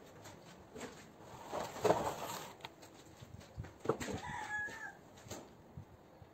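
Knocks and handling noises from work on a wet plaster moulding, the sharpest about two seconds in. A chicken gives a short call about four seconds in.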